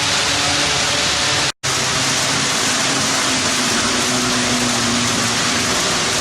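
HO-scale model train running on the layout: a steady loud hiss with a faint low engine hum under it, cutting out completely for an instant about one and a half seconds in.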